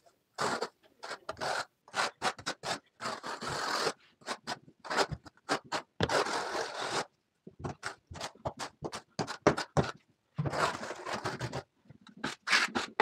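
Notched trowel scraping tile mortar across a cement-board floor in quick, repeated strokes, with a few longer sweeps, as the floor is combed out for laying ceramic tile.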